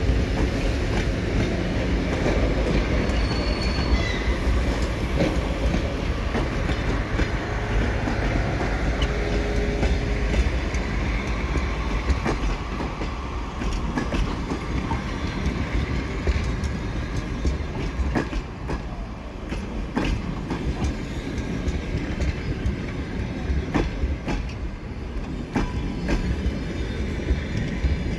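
Passenger coaches of a departing train rolling past close by: a steady rail rumble with the clickety-clack of wheels over rail joints, and a brief thin wheel squeal a few seconds in.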